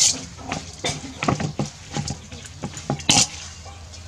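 A metal utensil clinking and scraping against a stainless-steel mixing bowl as noodles are tossed in it: a dozen or so short, irregular clicks and scrapes, the loudest right at the start and about three seconds in.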